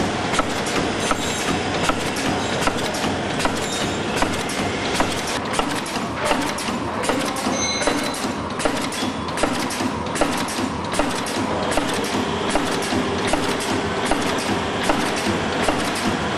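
Multi-track four-side-seal sachet packing machine running, a steady mechanical clatter with rapid, regular clicks.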